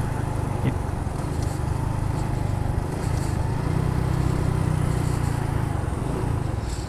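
Honda Pop 110i's small single-cylinder four-stroke engine running as the motorcycle rides along, its note dropping and fading near the end as the bike slows.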